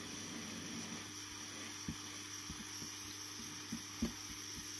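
Soldering iron tip melting a cable-tie offcut into clear plastic: a quiet faint crackle and a few soft taps over a steady low hum.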